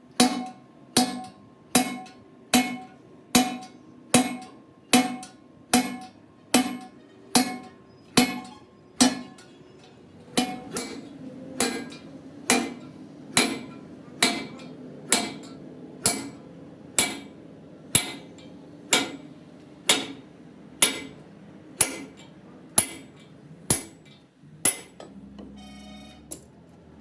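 Steady, evenly paced hammer blows on a steel truck differential tube, a little over one a second, each strike ringing metallically; the blows stop near the end.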